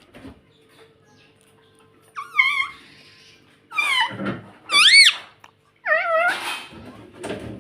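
Indian ringneck parakeet calling: a series of about five loud pitched calls that waver up and down in pitch, starting about two seconds in, with short pauses between them.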